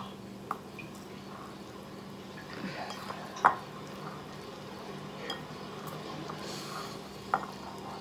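Wooden chopsticks clinking and tapping against a bowl as noodles are stirred and lifted: a handful of separate sharp clicks, the loudest about halfway through, over a faint steady low hum.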